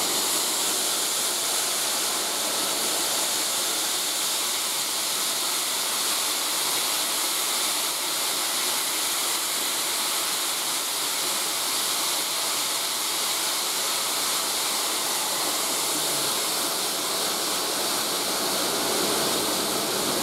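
Steady hiss of steam escaping from SR no 34028 Eddystone, a Bulleid West Country class Pacific steam locomotive, with no exhaust beats.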